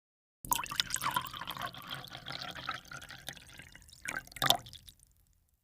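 Liquid pouring and dripping into a vessel, with two sharp knocks a little after four seconds in.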